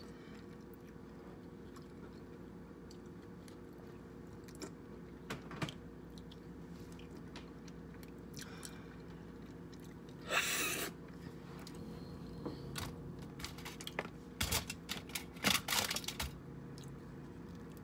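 Eating king crab legs: chewing with scattered cracks and crunches of shell, one louder crunch about ten seconds in and a cluster of them near the end, over a low steady hum.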